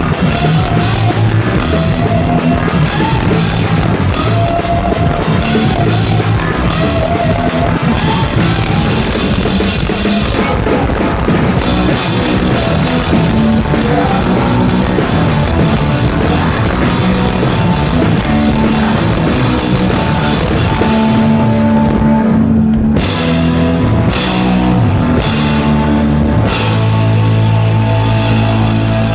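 Live rock band playing on stage: electric guitar and drum kit with full band sound. About three quarters of the way through the music drops out briefly, comes back in a few stop-start hits, then settles into held chords.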